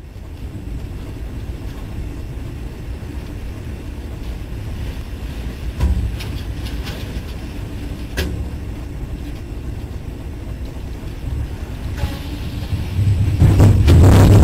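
Tornado winds and rain battering a train: a steady low rumble with a few sharp knocks about 6 and 8 seconds in. It swells much louder near the end as the car starts to tip.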